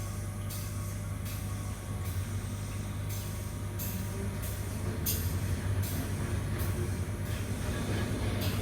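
Short hisses of pressurized air repeating every half second to a second over a steady low machine hum, from an endotympanic insufflation apparatus blowing gas.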